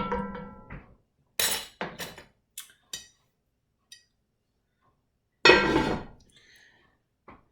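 Serving spoon clinking against the pot and bowls as chili is dished up: a few separate clinks, the loudest about five and a half seconds in.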